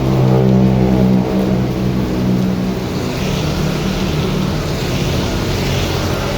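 A motor engine running steadily with a low hum, fading about halfway through as the hiss of heavy rain takes over.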